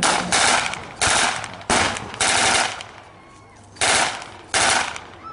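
Re-enactors' guns firing blanks: about seven loud, sharp shots in an uneven volley, each with a short echo, with a pause of about a second in the middle before two more.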